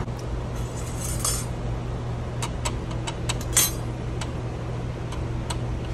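Light clinks of cutlery and dishes at a table, a scatter of short separate clinks with the loudest one about halfway, over a steady low hum.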